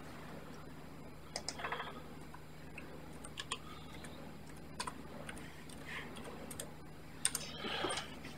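Faint, irregular clicks and small taps, some in quick clusters about a second and a half in and again near the end, over a low steady electrical hum.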